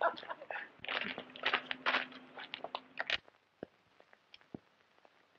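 Quick footsteps crunching on a gravel road, with a low steady hum under them from about a second in. They cut off abruptly about three seconds in, leaving near silence broken by a few faint ticks.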